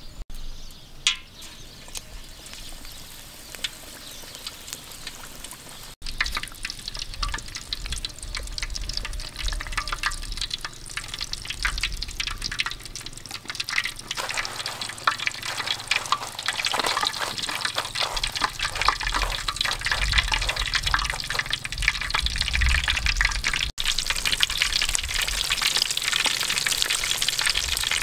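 Fish deep-frying in hot oil in a wok, a dense crackling sizzle that starts about six seconds in and grows louder around the middle. Before it, quieter rustles and clicks of a fish being pressed into breadcrumbs.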